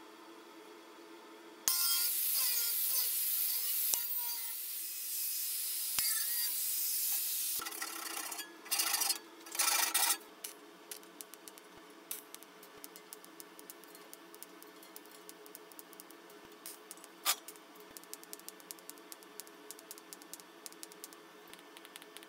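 Electric arc welding on thin sheet steel: a loud hissing crackle starts suddenly, runs about six seconds and cuts off, then two short bursts of about a second each. After that comes a faint, steady run of fine crackling ticks.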